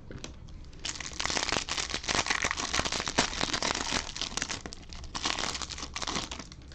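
Silvery foil wrapper of a 2020 Panini Absolute Baseball hobby pack being torn open and crinkled as the cards are pulled out. The crackling starts about a second in and runs in dense spurts until shortly before the end.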